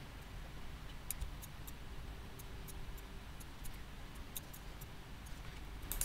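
Faint, irregular clicks of a computer mouse, about a dozen over a few seconds, as spline points are picked and dragged, over low room noise.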